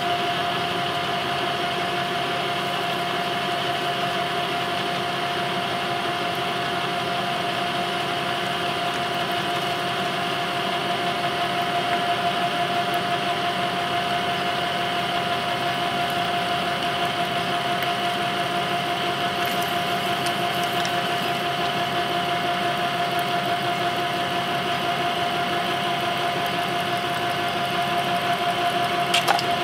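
Metal lathe running at about 350 rpm, turning a metal part with a carbide insert tool: a steady machine hum with one clear high tone held throughout. A brief click comes near the end.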